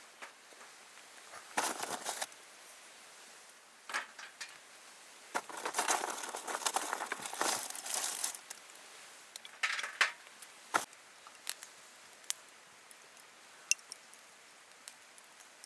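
Crinkling and rustling of something being handled, in three irregular spells, with scattered single sharp clicks between them.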